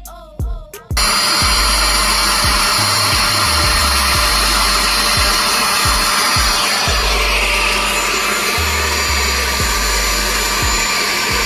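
Bissell 3624 Spot Clean Professional portable carpet cleaner's suction motor cutting in about a second in and then running loud and steady with a high whine, as its hand tool is worked over wet carpet.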